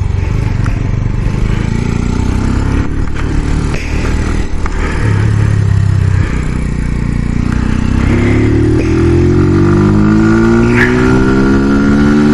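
Brixton Felsberg 125's single-cylinder four-stroke engine running at low revs, then from about eight seconds in revving up steadily as the motorcycle pulls away.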